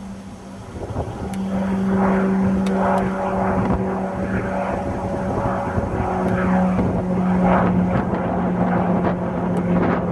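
High-wing twin-engine turboprop airplane flying low past and climbing away: a steady propeller drone that grows louder over the first two seconds and stays loud, dropping slightly in pitch near the end.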